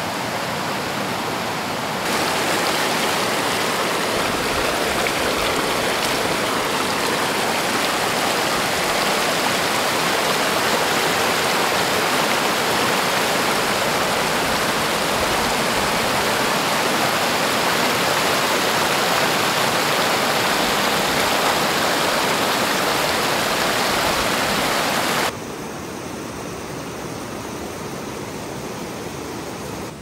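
Clear river water rushing over stones in shallow rapids: a steady, loud rush that steps up a little about two seconds in and drops to a softer rush near the end.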